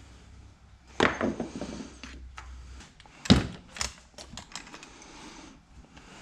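Steering column and hand tools being handled on a workbench: a rattling clatter about a second in, a heavy knock a couple of seconds later, then several light clicks and taps.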